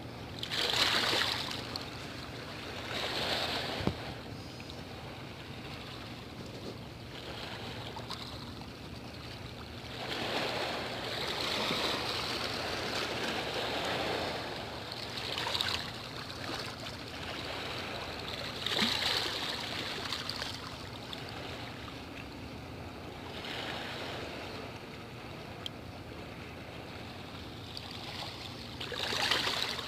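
Sea waves washing in against the shore in repeated surges, the strongest about a second in, near 19 s and near the end, over a faint steady low hum.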